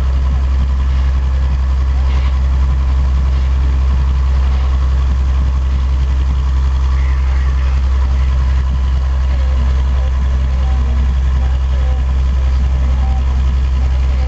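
A tour boat's engine running with a steady, loud low drone that does not change in pitch or level.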